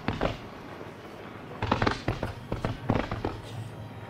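Aerial fireworks display: quick clusters of sharp bangs and crackles, with a lull of about a second and a half after the first group before they pick up again.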